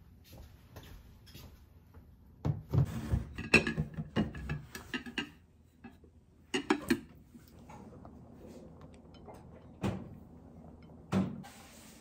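Plastic salad spinner clattering as it is spun, a rapid run of clicks and knocks for a couple of seconds and a shorter burst after it. Near the end, two single knocks of kitchenware.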